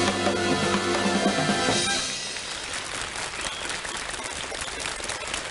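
A live band with brass and drums holds a closing chord that stops about two seconds in, then a studio audience applauds.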